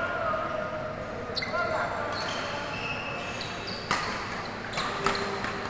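Badminton rally: several sharp smacks of rackets striking the shuttlecock, spaced irregularly, with short high squeaks of shoes on the court mat between them, in an echoing sports hall.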